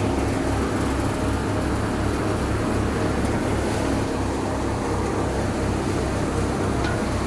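Mobile rice mill running steadily, its engine giving a rapid low throb under a constant hum and a rushing noise from the milling.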